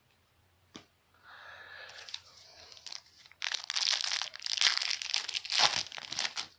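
A trading-card pack wrapper being torn open and crinkled by hand: a soft rustle, then loud crackling crinkles in the second half.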